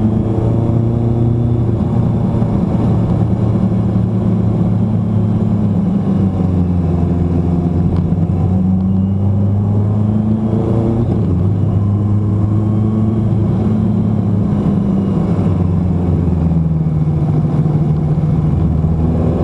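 Motorcycle engine running under way, its pitch falling and rising several times as the throttle is rolled off and opened through a series of bends.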